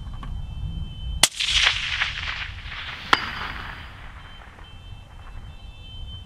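A single shot from a suppressed .260 Remington rifle about a second in, its report trailing off over the next two seconds. About two seconds after the shot comes a sharp distant clank: the bullet striking the steel gong at 450 metres, a hit.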